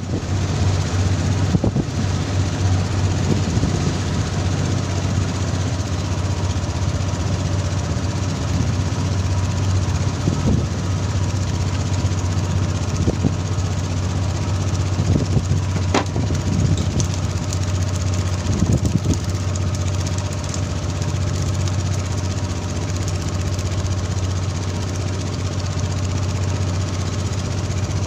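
Fishing boat's inboard engine running steadily with a low drone, under the hiss of water spray and the splashing sea. A few sharp knocks stand out, the clearest about halfway through.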